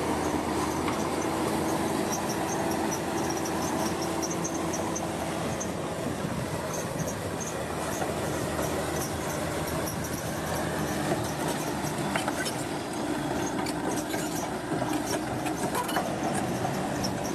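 Heavy earthmoving machinery running steadily, with a continuous engine and machine noise and faint high squeaks repeating throughout.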